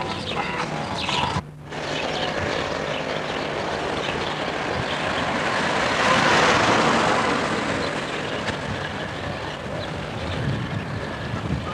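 A passing vehicle: a rushing engine noise that swells to its loudest about six seconds in and then slowly dies away. A brief dropout in the sound about a second and a half in.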